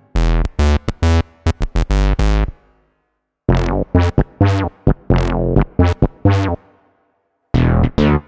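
Roland FA-06/FA-08 workstation playing synth bass patches in short, punchy notes, each with a bright attack that quickly darkens and dies away. Three short phrases, with a brief pause about three seconds in and another near seven seconds.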